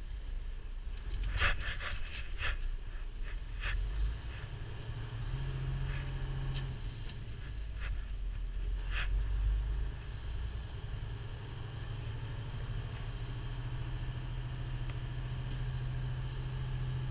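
Freightliner Cascadia semi truck heard from inside the cab while driving: the diesel engine's low steady hum, its pitch stepping up and down a few times, with several sharp clicks and rattles in the first ten seconds.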